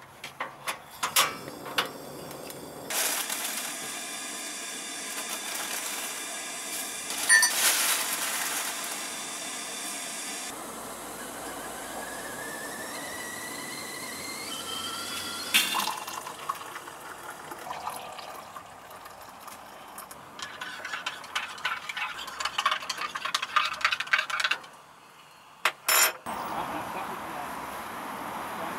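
Tea being made on a portable gas camping stove. A few sharp clicks at the start as the stove is lit, then a steady hiss as the kettle heats. Hot water is poured into a mug, its pitch rising over several seconds as the mug fills, and a spoon clinks against the mug while stirring. Background music comes in near the end.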